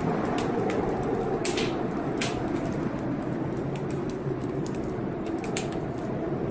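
Fireplace fire crackling, with irregular sharp pops and snaps, over a steady rushing storm noise.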